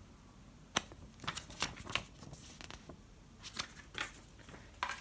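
Paper instruction leaflet and cardboard headphone box being handled: faint, irregular clicks and rustles of paper and card.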